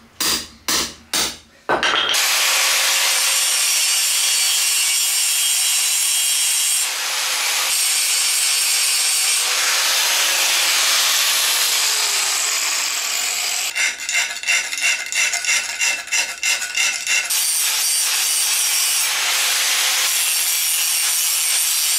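Several hammer blows on a hand punch driving through steel flat bar, then a corded reciprocating saw cutting steel with a steady, high rasping hiss that stutters in pulses for a few seconds midway.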